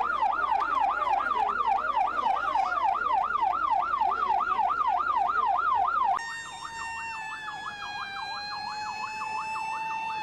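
Electronic siren yelping, sweeping quickly up and down about three times a second. About six seconds in it drops in level, and a steady, slowly falling siren tone with overtones sounds along with it.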